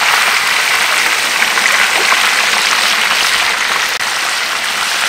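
Whole fish frying in hot oil in a wok, sizzling and crackling steadily.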